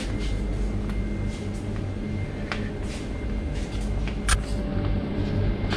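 Steady low hum of a convenience store's refrigerated drink coolers and air conditioning, with a few light clicks and one sharper click about four seconds in.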